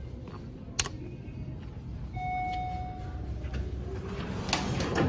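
Elevator lobby sounds: a sharp click a little under a second in, then a steady electronic chime tone lasting nearly a second, and near the end a clatter of knocks as the elevator doors open.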